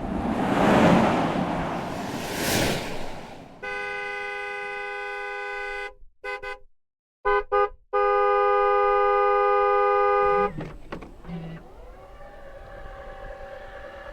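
Undercover police Ford Explorer SUV: the vehicle whooshes past twice, then its horn sounds in a steady blast of about two seconds. A few short toots follow, then a second, louder blast of about two and a half seconds.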